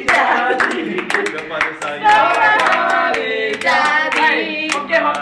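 A small group clapping their hands along to their own singing, with sharp claps coming at a loose, fairly quick beat.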